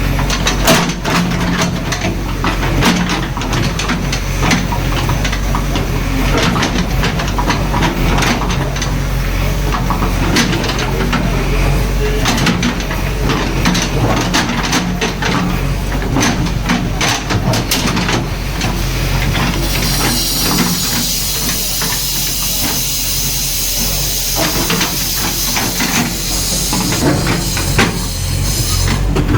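JCB 3DX backhoe loader's diesel engine running steadily, with many sharp knocks and clatter. About two-thirds of the way through, a loud high hiss comes in and holds until near the end.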